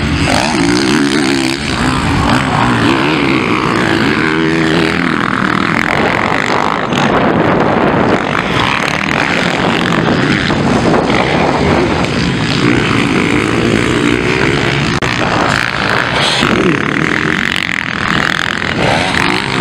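Motocross dirt bikes racing on the track, their engines revving up and falling back again and again as they climb jumps and ride the bumps.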